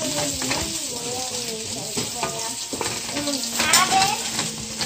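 Shrimp and bell peppers sizzling in hot oil in a skillet while a wooden spatula stirs and scrapes them around the pan.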